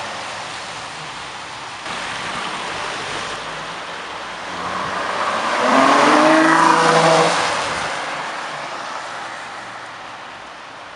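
Ferrari FF's V12 engine accelerating hard, its note rising to a loud peak about six to seven seconds in and then fading away, over a steady hiss from the wet road.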